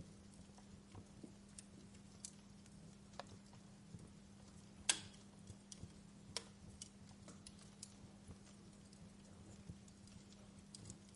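Wood fire crackling softly, with scattered sharp pops at an uneven pace; the loudest pop comes about five seconds in. A faint steady low hum runs underneath.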